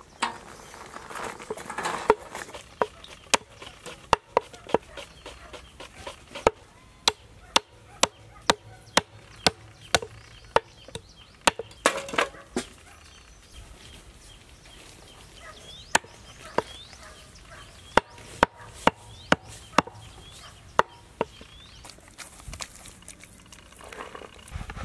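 A cleaver chopping goat meat on a wooden block: sharp single chops, coming about two a second in a steady run through the middle, with scattered chops before and after.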